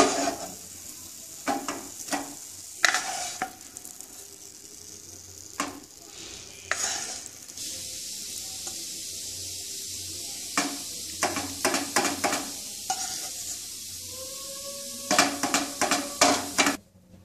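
A wooden spatula scraping and tapping cooked beet paste out of a nonstick frying pan into a bowl, in short clusters of strokes, over a steady sizzle from the still-hot pan.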